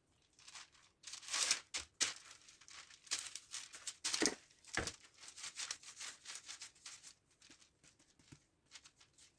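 Baking paper crinkling and rustling under the hands while sticky, olive-oiled ciabatta dough is stretched and folded on it, in irregular short bursts that thin out near the end.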